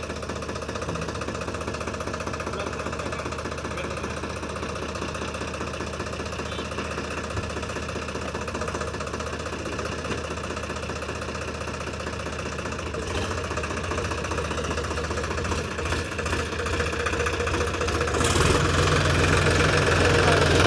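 Sonalika DI-47 RX tractor's diesel engine running steadily, growing clearly louder in the last few seconds.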